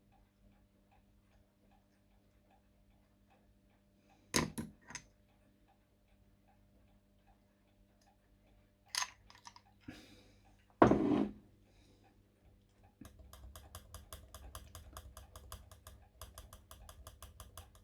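A clock ticking faintly and evenly, about two ticks a second, with a few knocks of clock parts being handled. About 13 seconds in, a fast, even run of sharp mechanical clicks starts, about six a second.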